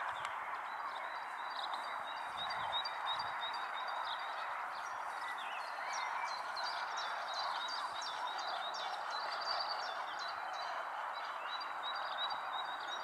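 Small birds chirping and trilling repeatedly over a steady rushing background noise.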